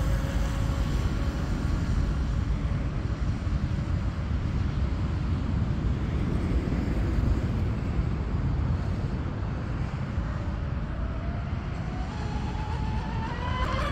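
Twin brushless electric motors (Turnigy XK3674, 2200 kV) of an RC speed boat whining at speed, fading as the boat runs away, under a steady low rumble of wind on the microphone. From about eleven seconds in, the whine rises in pitch and grows as the boat comes back at full speed.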